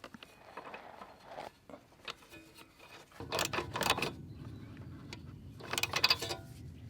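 Scattered clicks and short rattling bursts of small mechanical handling, with a low steady hum coming in about three seconds in.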